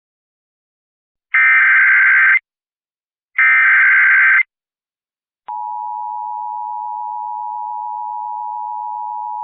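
Emergency Alert System SAME header: two roughly one-second bursts of buzzy digital data warble, a second apart. About five and a half seconds in, the EAS two-tone attention signal starts and holds steady. It marks the start of a National Weather Service alert, here a flash flood warning.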